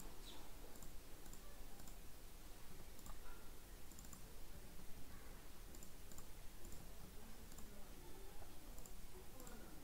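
Computer mouse clicking: a string of short, sharp clicks at irregular intervals, some in quick pairs, over a faint steady background hum.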